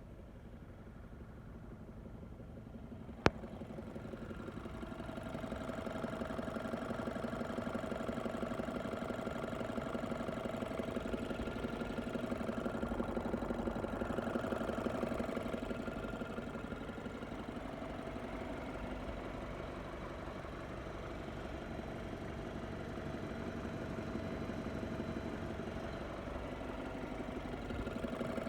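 BMW N20 2.0-litre turbo four-cylinder in a 528i F10 idling with a fast, steady pulse and a dull knock. The owner hears the knock distinctly when the engine is warm and less when it is cold. There is a single sharp click about three seconds in.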